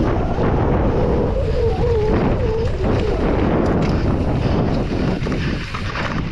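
Wind buffeting the camera microphone over the rattle and tyre noise of a mountain bike descending a rough downhill trail, with a brief wavering tone about a second and a half in.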